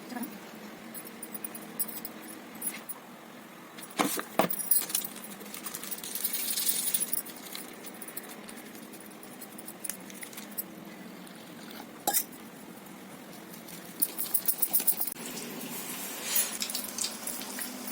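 Light clinks and jingles of metal kitchenware and dishes being handled, with a few sharp knocks (about four seconds in and again around twelve seconds) and short runs of rapid rattling, over a faint hiss.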